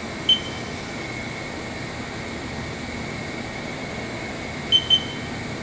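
Haas VF5 vertical machining center's CAT 50 geared spindle running at a steady speed: a steady mechanical hum with a constant high whine. Three short high beeps sound over it, one about a third of a second in and two close together near the end.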